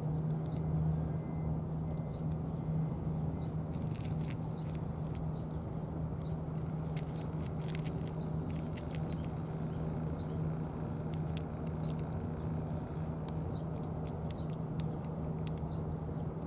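A cat crunching dry kibble: a scatter of small, crisp clicks at an irregular pace, over a steady low background hum.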